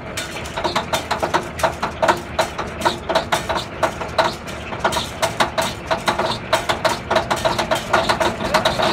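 Caterpillar 594H pipelayer's diesel engine running just after start-up, with a rapid, slightly uneven beat of exhaust pulses.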